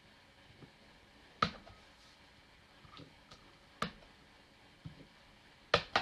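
Clear acrylic stamp block knocking down on cardstock and tapping on an ink pad during rubber stamping. There are three sharp knocks about two seconds apart, the last the loudest, with a few fainter taps between.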